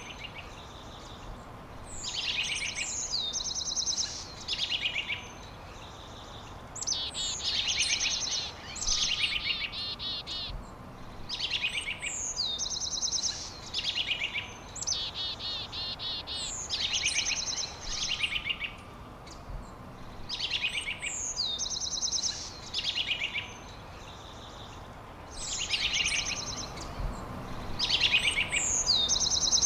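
A songbird singing, repeating a short high phrase of rapid trilled notes over and over, with brief pauses between phrases.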